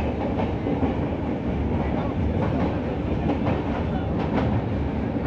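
Moving train: a steady rumble with the wheels clacking over the rail joints, a few clicks standing out in the middle.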